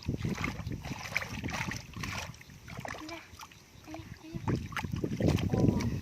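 Irregular sloshing and splashing of muddy water as hands grope through a muddy pool, quieter for a moment in the middle.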